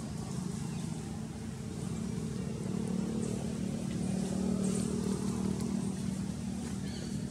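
A low engine drone, steady with a faint hum, swelling in the middle and easing near the end, like a vehicle passing at a distance.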